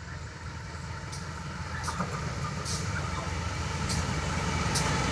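Diesel locomotive hauling passenger coaches, approaching along the track: its engine and wheel rumble grow steadily louder, with a few short high clicks on top.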